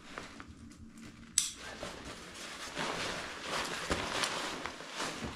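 Nylon rucksack fabric and webbing straps rustling and scraping as they are handled and pulled, with one sharp plastic buckle click about a second and a half in.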